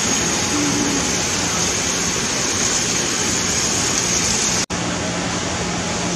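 Steady rushing noise of water running from a kitchen tap into a steel sink, over a constant low machine hum. It cuts out for an instant about four and a half seconds in.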